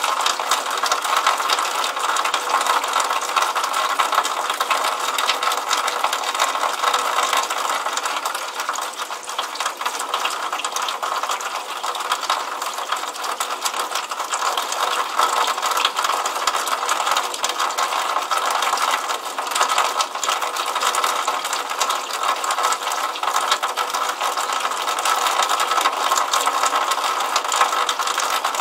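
Water running out of a drainpipe downspout and splashing steadily into a puddle, a dense fast patter that never pauses.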